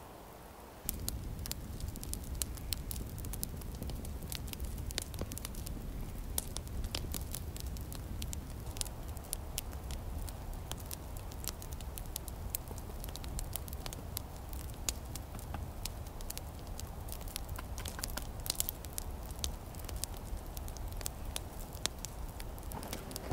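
Small campfire of dry twigs burning, crackling with many sharp, irregular pops and snaps over a low steady rumble that comes in about a second in.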